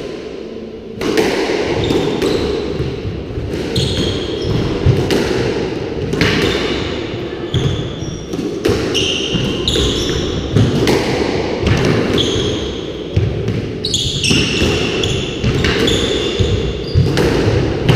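A squash rally: the ball cracking off rackets and the court walls again and again from about a second in, with short high squeaks of shoes on the wooden floor in between, echoing in the enclosed court.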